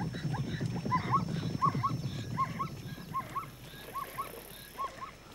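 An animal calling in short, high notes in pairs, about one pair a second, over a low rumble that dies away about halfway through.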